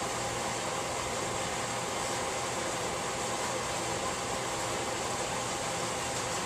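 Steady fan noise: an even whoosh with a faint steady hum under it, from the lab's exhaust fans.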